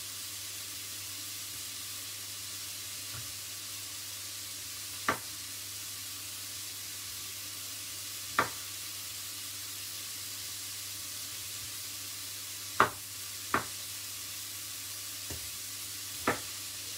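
Onions and peppers sizzling steadily in a frying pan, with about six short, sharp knocks of a knife against a wooden chopping board as the peel is cut from an orange.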